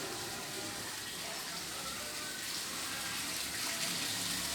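Rain falling steadily, an even hiss with no pauses, a little louder near the end.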